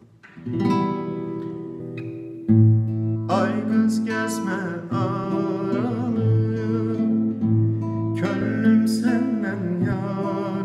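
Nylon-string classical guitar being played, opening with plucked notes and a louder chord about two and a half seconds in. A man's voice joins in singing from about three seconds in, with a wavering vibrato.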